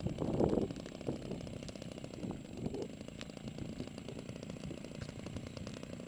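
Cessna 150/152 light aircraft's piston engine running steadily at low power with an even, buzzy firing beat.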